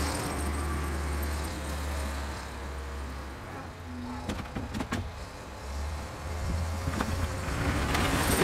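Old Volvo tractor loader's engine running as it drives off and comes back, fading in the middle and growing louder near the end, with a few sharp clinks along the way.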